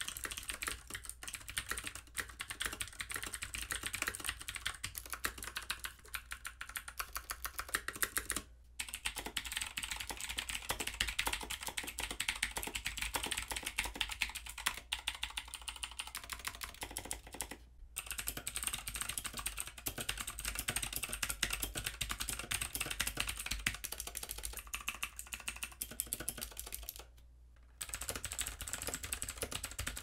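Fast typing on clicky mechanical keyboards: dense runs of sharp key clicks, played as back-to-back runs with three short pauses between them. The runs go from Cherry MX Blue switches on a Thermaltake MEKA Pro, to Razer Green switches on a Razer BlackWidow X Chroma, to a third board, ending on a keyboard with generic Cherry-clone blue switches.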